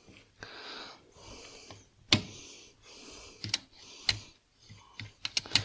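Vespa PK 50 XL2 small-frame gearbox being shifted by hand on the bench: metal gears and the shift claw scraping and clicking as gears are selected. There are a few sharp clicks, then a quick run of clicks near the end.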